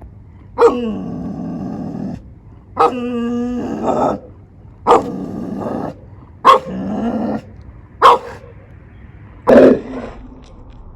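Large dog barking and growling in a run of about six loud barks, each dragging out into a rough growl, some pitched like a howl.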